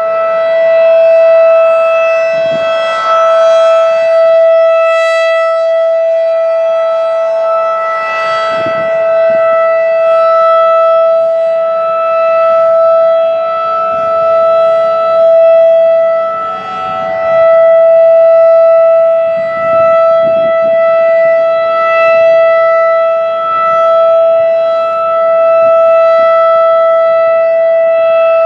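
Federal Signal 2001-DC rotating warning siren sounding its steady alert tone during a monthly test. The single high tone holds its pitch while its loudness slowly swells and dips as the rotating horn turns.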